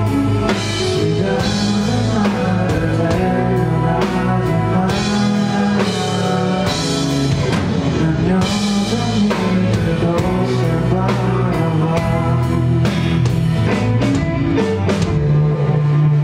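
Rock band playing live: drum kit keeping a steady beat under electric guitars and bass, in full, loud band music.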